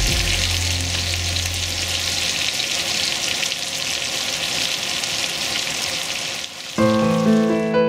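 Food frying in a pan, a steady sizzle, with a low hum that fades out over the first two seconds. Piano music comes in near the end.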